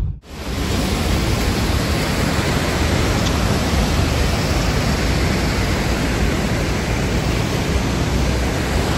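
Fast-flowing mountain river running in full spate: a steady, even rushing of water that starts abruptly a moment in.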